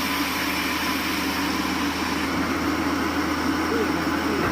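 Sawmill machinery running with a steady, even engine drone.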